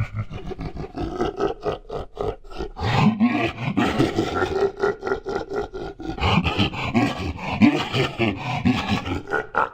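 A deep, pitch-shifted demon voice laughing: a long run of rapid, rhythmic low laugh pulses, with a rising growl about three seconds in.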